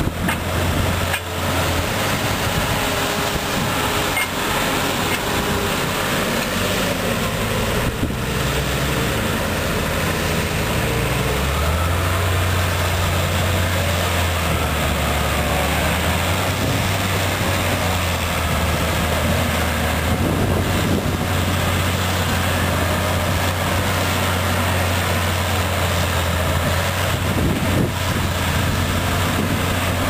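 Case tractor engines running steadily under load while pulling a trailed Grimme potato harvester, with a second tractor and trailer running alongside. A continuous low engine drone with machinery noise above it.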